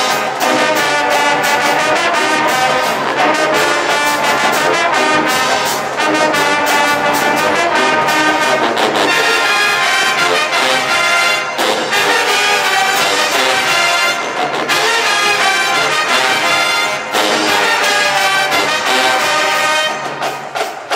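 HBCU-style marching band playing loudly and continuously, a full brass section of trombones and trumpets over percussion, until the music eases near the end.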